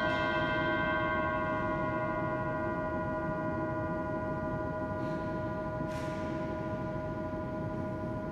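A large metal bowl struck and ringing like a singing bowl, its many steady tones fading slowly under the cisterns' long echo. It is struck again, more softly, about five and six seconds in.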